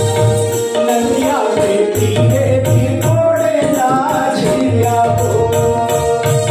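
Chhattisgarhi folk song played live: harmonium and keyboard hold steady tones over a regular drum beat with jingling percussion. A voice sings a wavering melodic line from about a second in until past the middle.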